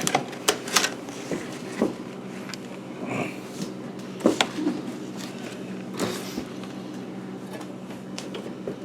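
Scattered clicks and knocks of food containers and packaging being handled and rummaged through, over a steady low hum.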